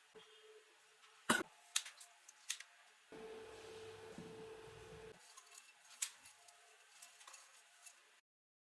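Several sharp clicks and snips from small tools or parts being handled, with a steady hum for about two seconds in the middle. The sound cuts out abruptly near the end.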